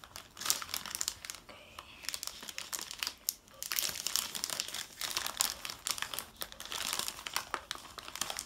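Foil-lined plastic candy packet from a Kracie Popin' Cookin' sushi kit crinkling as hands open it and pull out the black seaweed candy sheet, with a brief lull about three seconds in.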